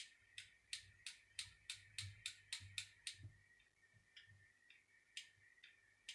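Miele S5211 vacuum cleaner motor armature turned slowly by hand, clicking as it goes round: a quick run of about a dozen sharp clicks that speed up, then a few fainter ones. The clicks fall in time with the positions of the carbon brushes on the commutator.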